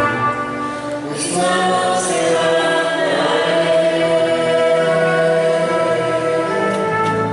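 A church congregation singing a hymn together, with long held notes.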